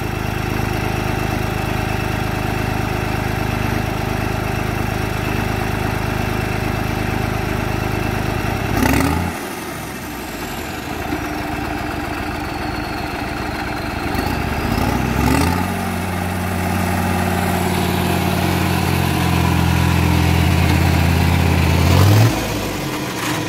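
New Holland 5620 tractor's diesel engine running hard while working a 10-foot rotavator through hard ground. The engine note drops about nine seconds in, climbs back to a strong, steady, higher note around fifteen seconds, and falls off again near the end.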